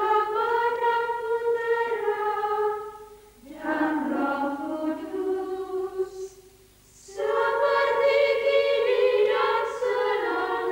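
Choir of nuns singing a cappella in slow, sustained phrases. There is a short break about three seconds in and a pause of about a second a little after six seconds.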